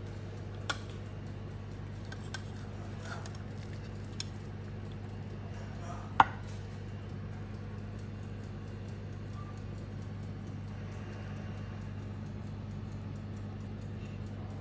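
A serving spoon clinking against a glass baking dish and a plate: a few sharp clinks in the first half, the loudest about six seconds in, over a steady low hum.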